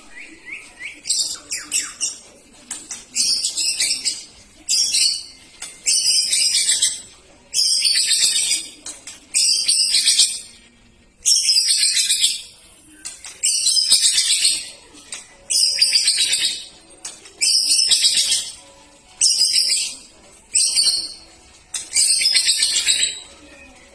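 A songbird singing in loud, rapid, high-pitched phrases of about a second each, one after another every second and a half to two seconds.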